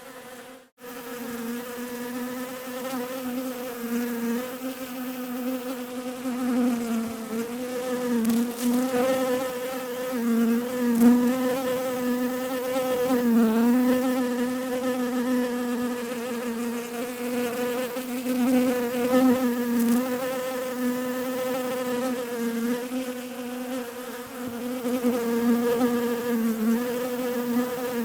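Bees buzzing: a steady hum with a slight waver in pitch, cutting out for a moment about a second in.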